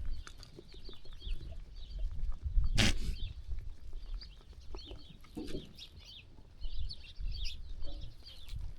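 Farmyard ambience among sheep: small birds chirping busily over a low rumble, with brief low animal calls, and a sharp knock about three seconds in.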